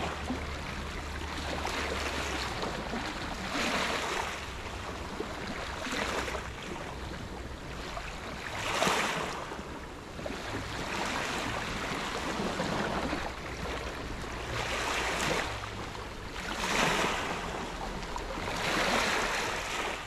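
Small sea waves breaking and washing up a sand-and-pebble shore. Each wave surges and recedes, about one every two seconds.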